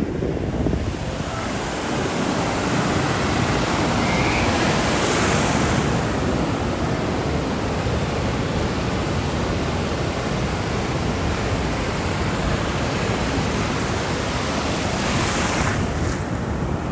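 Ocean surf: a steady rush of waves, with one wave washing in louder about five seconds in and another near the end.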